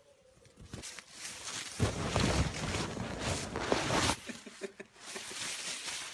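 Loud rustling and bumping of a handheld camera being rushed along, with scuffing steps. It swells about a second in, runs for about two seconds and stops suddenly, leaving a few faint clicks.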